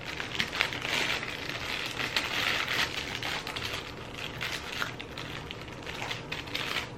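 Packaging crinkling and rustling with many small clicks as it is handled and unwrapped.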